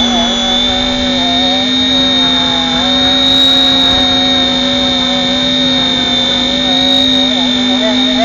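Radio-controlled helicopter in flight, heard through a camera mounted on its front: the motor and rotor give a steady high whine and a low hum, with a mid-pitched tone that wavers up and down.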